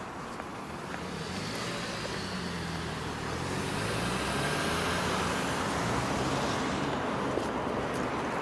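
Street traffic with a car driving close past: engine and tyre noise swelling to a peak around the middle, then easing.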